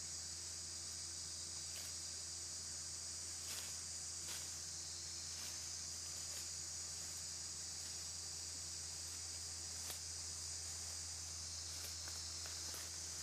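Steady chorus of insects: a continuous high buzz, with a steady low hum beneath it and a few faint clicks.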